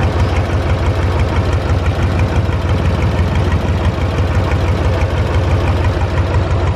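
Large farm tractor's engine running steadily and loud, with an even, rapid chugging pulse.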